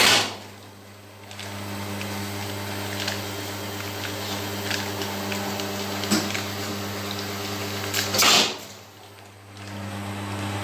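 Capsule filling machine running with a steady hum, broken twice, at the start and about eight seconds in, by a short loud rush of noise, each followed by a brief lull before the hum picks up again; a few light clicks fall in between.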